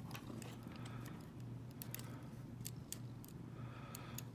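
Irregular small metallic clicks and ticks of a lock pick and tension tool working the pins inside a Winkhaus euro cylinder, over a low steady hum.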